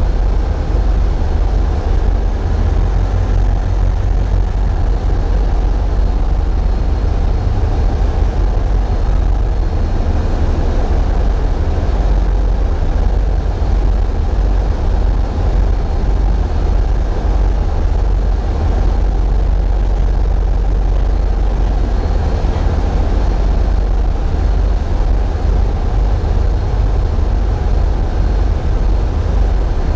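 Tugboat's diesel engines running steadily: a loud, unchanging low rumble mixed with rattling vibration noise from a camera mounted where the engines shake it.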